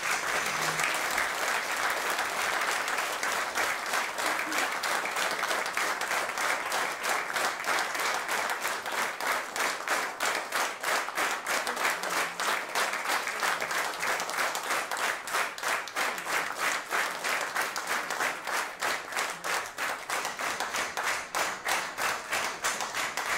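Audience applauding steadily, the clapping becoming more even and rhythmic in the second half.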